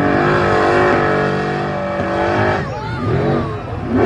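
Hill-climb buggy's engine running at high revs up a steep dirt hill; the engine note holds for about two and a half seconds, then dips and fades.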